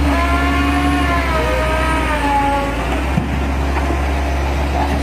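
Heavy truck engine running with a deep steady rumble; a whining pitch slides slowly down over the first few seconds and fades. A single knock comes about three seconds in.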